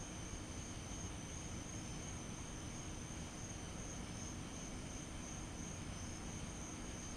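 Crickets chirping in a steady night chorus, a continuous high-pitched trill, over a faint low rumble.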